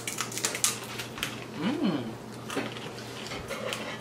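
Hand-cooked potato crisps crunching as several people bite and chew them, a dense run of sharp crackles. About halfway through, a short voice hum rises and falls.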